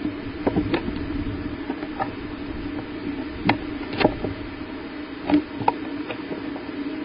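A steady low hum with about eight sharp clicks and taps scattered irregularly through it.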